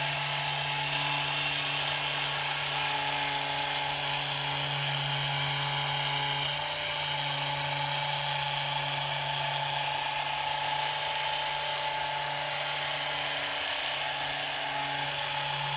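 Rapid Release Technology handheld vibration therapy device running steadily as it is worked over the upper back and trapezius muscles. It gives a constant buzz at about 150 Hz that dips briefly twice.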